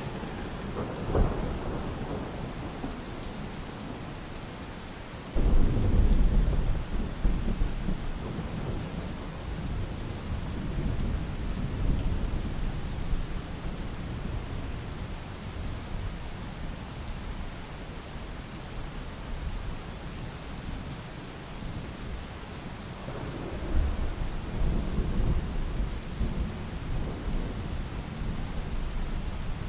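Steady rain falling, with rolls of thunder. One thunder clap breaks in suddenly about five seconds in and rumbles on for several seconds, and another roll comes near the end.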